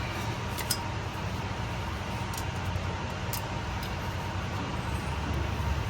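Steady low mechanical rumble with a few light clicks: two close together less than a second in, and one more about three and a half seconds in.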